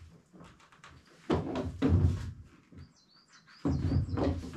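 Fabric rustling and dull knocks as the seat of an ultralight camping chair is stretched onto the tips of its folding pole frame, twice. A small bird chirps a few times about three seconds in.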